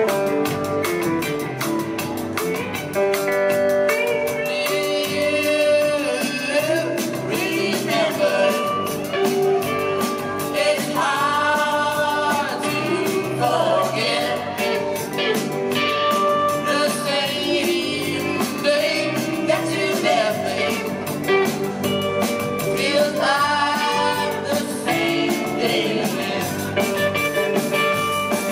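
Live garage rock band playing a song: sung lead vocals over electric guitars and a steady drum beat.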